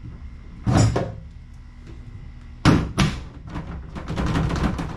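Plastic swing-case truck-bed toolbox being moved and shut: three hollow knocks, then a rattling scrape over the last second and a half.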